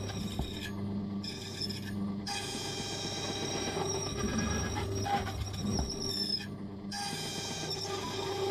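Silca Lancer key-cutting machine running: a steady motor hum under a high metallic squeal of the cutter working a key. The squeal cuts out briefly three times, about a second in, at two seconds and near seven seconds, while the hum carries on.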